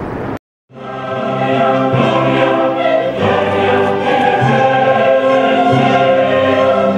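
Choral music, a choir singing sustained chords, starting after a brief silence about half a second in.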